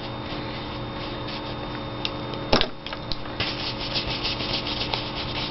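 Paintbrush being wiped out and rubbed in quick, short strokes, with a single light tap about two and a half seconds in.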